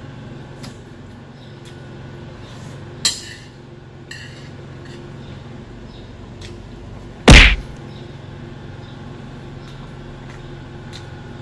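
Metal fork and spoon clinking against a ceramic plate now and then during fast eating, over a steady low hum. One much louder knock comes about seven seconds in.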